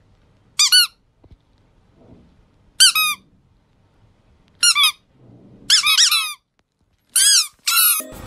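Squeaky toy squeezed in short, high-pitched squeaks, about six of them spaced irregularly, each bending up then down in pitch.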